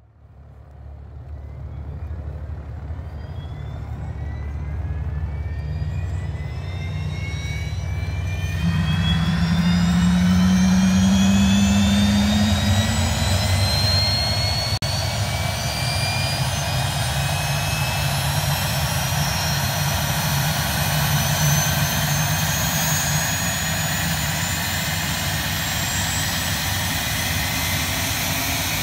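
Pilatus PC-24's Williams FJ44-4A turbofan starting up: a whine that climbs steadily in pitch as the engine spools up, over a low rumble. About eight seconds in, a rush of engine noise swells in and grows louder, then settles into a steadier running whine that still edges upward.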